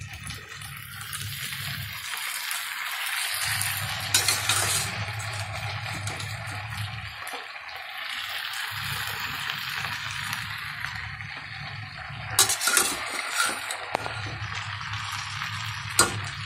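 Vegetable vermicelli sizzling in a frying pan while it is stirred, with a few sharp knocks of the spatula against the pan, the loudest near the end.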